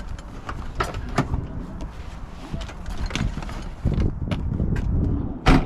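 Tools and a work bag being handled: scattered clicks, clinks and knocks with low rustling thuds between them, and a sharp knock near the end.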